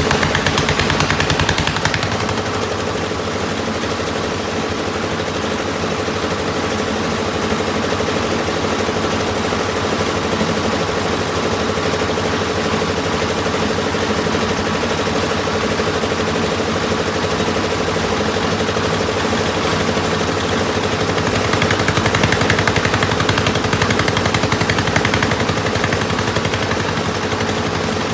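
Piling machinery running: an engine with a rapid, even rattle of knocks and a steady hum, a little louder near the start and again about three quarters of the way through.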